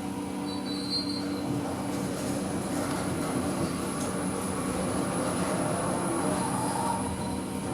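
Otis Gen2 lift car travelling in its shaft: a steady hum and whir of the drive and car in motion, with a short high beep about half a second in.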